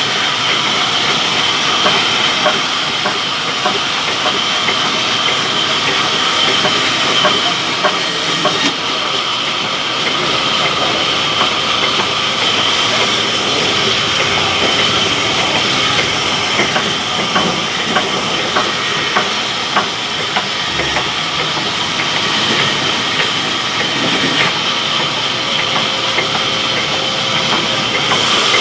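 Sawmill saw running and cutting through a mango wood log: a loud, steady hiss with a constant high whine and scattered small clicks and knocks.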